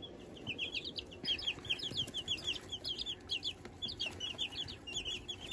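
Baby chicks peeping in a brooder: a busy run of short, high chirps, each dropping slightly in pitch, several a second, growing denser about a second in.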